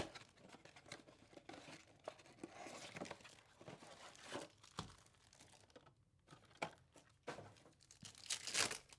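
Faint paper and cardboard tearing and wrapper crinkling, in several short bursts, as a Topps Chrome baseball blaster box is opened and a card pack's wrapper is torn open. The loudest tear comes near the end.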